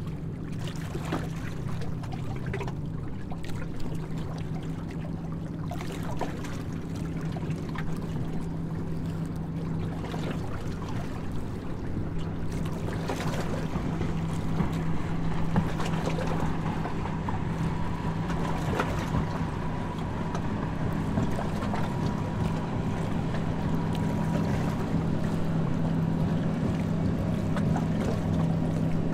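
Tour boat's engine running with a steady low drone as the harbour cruise gets under way, growing slowly louder, over the rush of water and wind.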